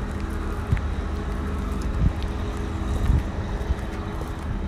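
Wind rumbling on the microphone outdoors, with a faint steady low hum underneath and a few soft thumps.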